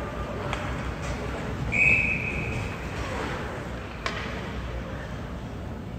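A referee's whistle blows one short, steady, shrill blast about two seconds in over the hockey arena's background noise. A single sharp knock follows about four seconds in.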